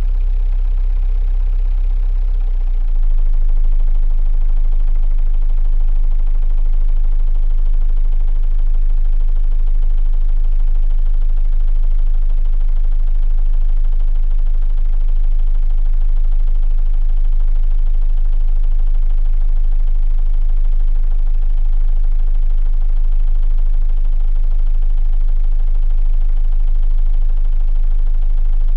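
A 45 ft sailboat's inboard diesel engine running steadily, heard through the hull from inside the aft cabin as a deep, low hum. About three seconds in it steps to a new steady speed, a little louder, and holds there.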